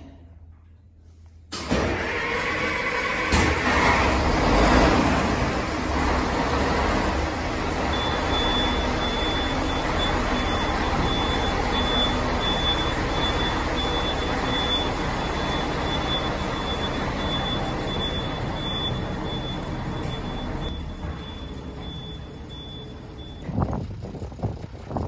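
Mitsubishi MR430 bus's diesel engine starting up suddenly about a second and a half in, louder for a few seconds, then idling steadily. A high pulsing beep sounds through the middle part.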